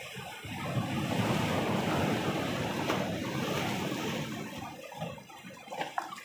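Sea waves surging in and breaking against rocks, swelling about half a second in and washing back out after about four seconds.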